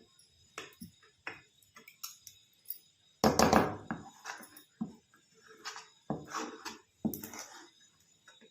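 A spoon stirring and scraping in a pan of thick ginger and sugar syrup as honey is mixed in. It makes irregular clinks and scrapes against the pan, the loudest about three seconds in.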